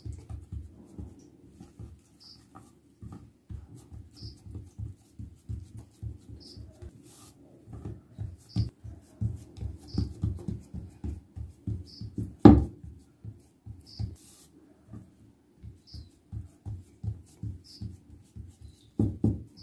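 Hands patting a round of maize-flour dough flat on a plate to shape makki ki roti: a long run of soft, low pats, several a second, with one sharper knock a little past the middle.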